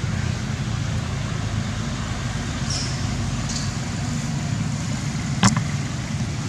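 Steady low rumble of road traffic, with two short high chirps a few seconds in and one sharp click about five and a half seconds in.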